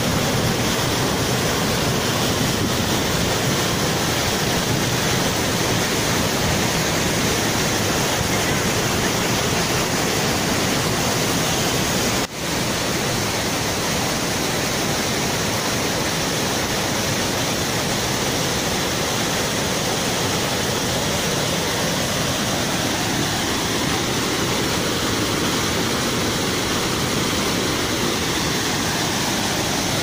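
Waterfall pouring and splashing over rocks: a steady, even rush of falling water. It dips briefly once, about twelve seconds in.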